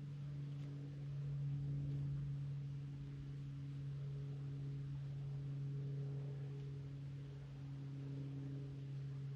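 A steady low hum on one unchanging pitch with faint overtones above it.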